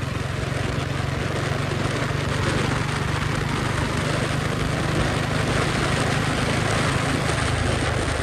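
Single-cylinder Royal Enfield 350 engine running steadily under way, with wind and road noise over it.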